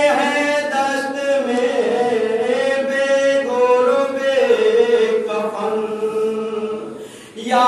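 Men's voices chanting a nauha, an Urdu Shia mourning lament, unaccompanied, in long held notes. The phrase fades away shortly before the end.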